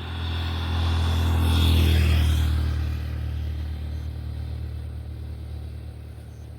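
A motor vehicle passing on the road: its noise grows to a peak about two seconds in and then fades away, over a steady low engine hum.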